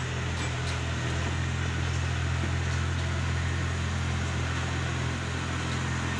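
Tracked rice combine harvester's diesel engine running steadily at a low, even hum as the machine creeps backward toward the loading ramps.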